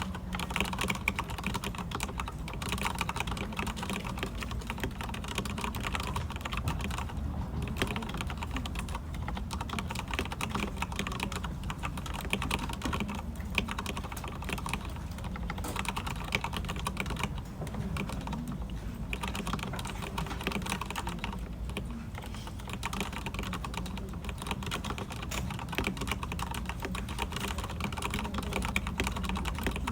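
Continuous, fast typing on a Ducky x Thinkway mechanical keyboard with red linear switches: a steady stream of keystroke clacks with no real pauses, over a low steady hum.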